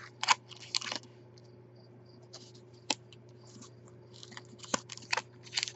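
Foil-wrapped trading-card booster packs being handled on a desk: scattered crinkles and light clicks in short clusters, over a steady low hum.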